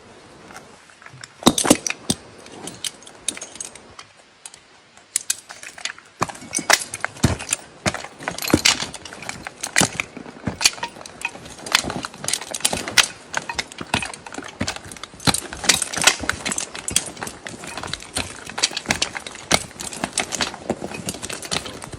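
Irregular metallic clinking and knocking, like gear or tools being handled. It comes in scattered clicks at first and turns into several clinks a second from about six seconds in.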